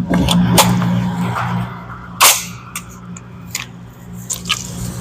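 Gunshots on a shooting range: about seven sharp shots at uneven intervals and differing loudness, the loudest a little over two seconds in, over a steady low hum.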